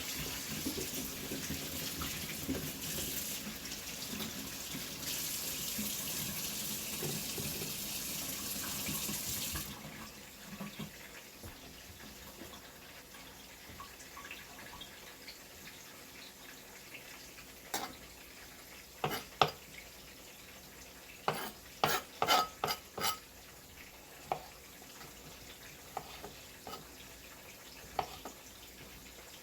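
Kitchen tap running into a sink, turned off abruptly about a third of the way through. After a quiet stretch comes a quick run of sharp knocks and clinks of kitchenware.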